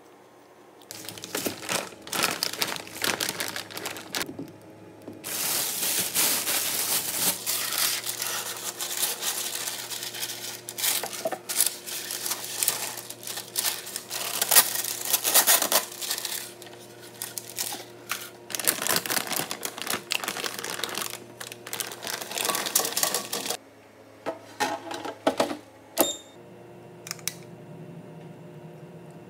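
Parchment paper crinkling and rustling as it is unrolled and handled, with many sharp crackles and tearing sounds. The crackling stops about 23 seconds in, leaving a few scattered taps and clicks over a low hum.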